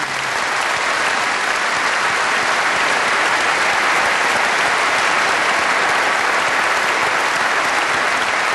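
An audience applauding, swelling over the first second and then holding steady.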